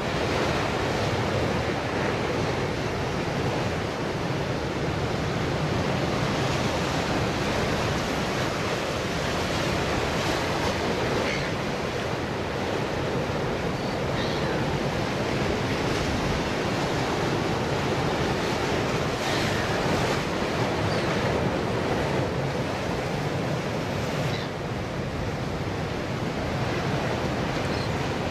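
Ocean surf breaking and washing over a rocky shoreline, a steady rush of waves and foam.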